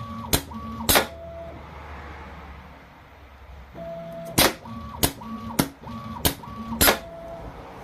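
Pneumatic cylinders of a DIY CNC 5C collet chuck and bar puller cycling. There are sharp clacks with a steady whine between them: two early on, then after a pause of a couple of seconds a run of five more, about two every second and a bit.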